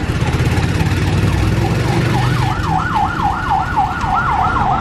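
Motorcycle engine of a tricycle running, heard from inside the sidecar. About two seconds in, a fast wavering siren comes in over it, sweeping up and down about three times a second and growing louder.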